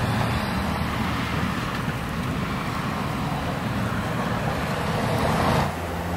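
Blustery snowstorm wind buffeting the microphone, over a steady rumble of street traffic. The hiss swells about five seconds in, then the sound drops suddenly just before the end.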